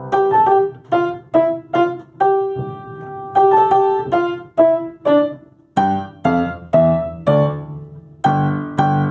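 Instrumental keyboard music in a piano sound: a melody of separate struck notes, each dying away, about two or three a second, with fuller, lower chords near the end.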